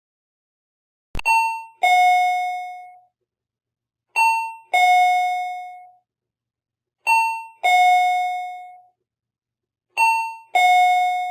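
Two-tone ding-dong doorbell chime rung four times, about every three seconds. Each ring is a higher note followed by a lower one that rings out and fades.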